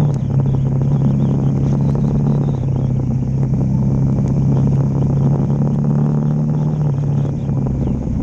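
Dual-sport motorcycle engine running at a steady cruise on a dirt and gravel road, with tyre and wind noise and scattered small ticks from the gravel. The engine note drops slightly about seven seconds in.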